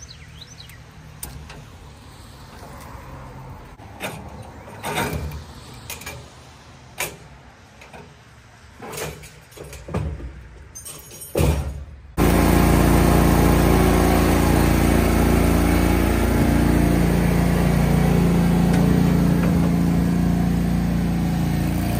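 Scattered knocks and clicks from handling the mower on its trailer, then, about halfway in, a Bad Boy Rebel zero-turn mower's engine comes in suddenly and runs steadily and loudly.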